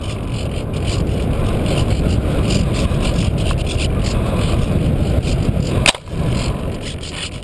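Airflow rushing over the onboard camera of a Radian RC glider flying low, growing louder, with no motor whine. About six seconds in comes a single sharp knock as the glider touches down on the sand, followed by quieter rushing.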